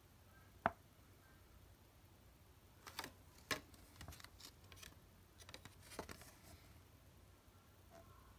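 A cassette's folded paper lyrics insert being handled: one sharp click a little under a second in, then a run of light paper crackles and small clicks for a few seconds as the fold-out is flipped over and turned.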